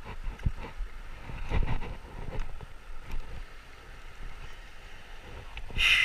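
Wind rumbling on the microphone over the steady rush of a shallow river riffle, with a few soft knocks. Near the end comes a short, brighter burst of hissing noise.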